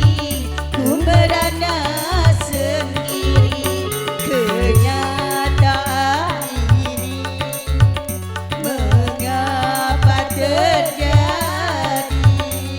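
Dangdut music from a street orkes band: a melody with sliding, ornamented bends over a steady beat of heavy low drum and bass thumps about twice a second.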